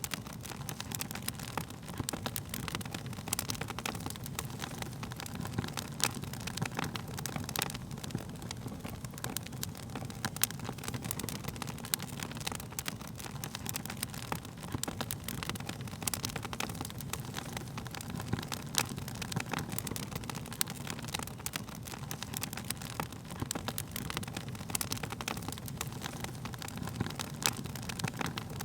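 Wood fire crackling: frequent irregular sharp pops and snaps over a steady low rumble of flames.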